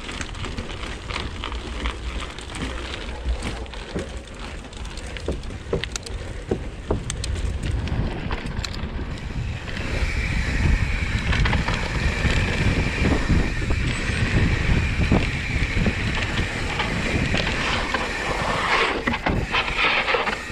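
Mountain bike ridden along a dirt trail, heard from a camera on the handlebars: wind buffets the microphone while the tyres roll and the bike's parts rattle over bumps. The rushing grows louder about halfway through as the bike picks up speed.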